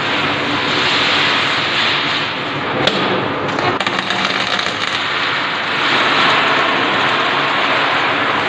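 Electric arc welding: the arc crackles and sizzles steadily, with a sharp click about three seconds in.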